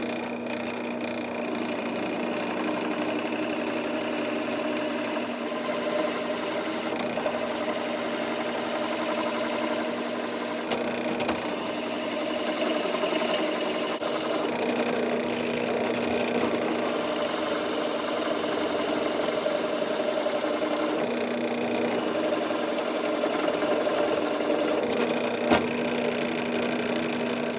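Central Machinery drill press motor running at a lowered speed while a 35 mm Parkside Forstner bit bores slowly into a wooden block, a steady hum with the cutting under it. A single sharp knock near the end.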